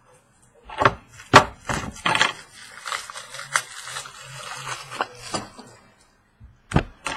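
Cardboard card boxes being handled and set down: a string of knocks and thuds with rustling and scraping in between.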